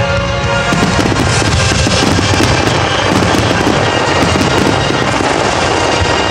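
Fireworks display: aerial shells bursting, with a dense run of rapid crackling pops that thickens about a second in, over music with sustained tones.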